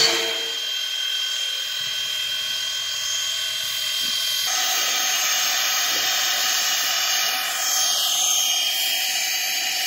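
Steady hiss of steam escaping from Canadian National 89, a 1910 2-6-0 Mogul steam locomotive standing in the yard, with a high steady whine riding on it. The hiss gets louder and brighter about halfway through.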